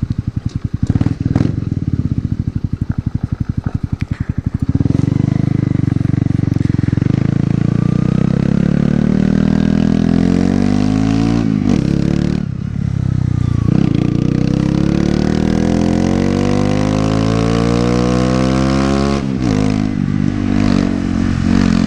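Honda CBR125's single-cylinder four-stroke engine on the move: a low, even pulsing at first, then rising in pitch as the bike accelerates through the gears, with the revs dropping at gear changes about 12 and 19 seconds in.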